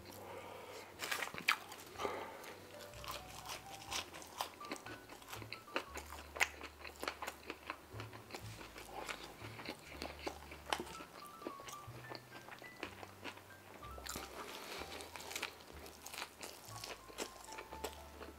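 Close-miked chewing of food: irregular soft crunches, mouth clicks and smacks. Quiet background music with low bass notes plays underneath.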